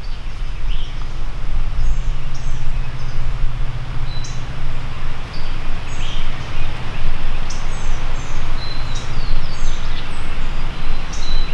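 Songbirds chirping and singing in short, high notes, over a steady low rumble that dies away near the end.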